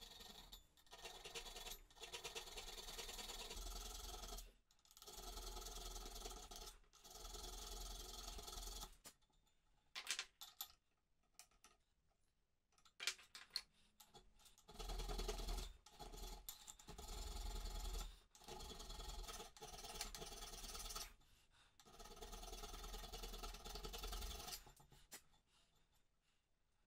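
A small hand file rasping on the metal teeth of a Goodell-Pratt breast drill's crank wheel, in long strokes of one to two and a half seconds each, about seven in all. This is the dressing of broken teeth that have been built back up with weld. Around the middle the filing stops for a few seconds of light clicks.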